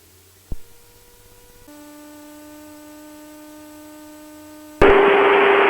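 Steady electrical hum with a few fixed tones in the cockpit radio and intercom audio, after a click. Near the end a radio transmission opens suddenly with a loud burst of static hiss.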